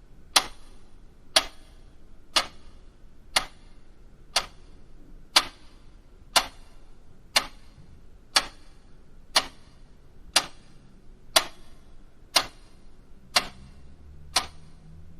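Clock ticking, one sharp tick a second, evenly spaced, over faint low background noise.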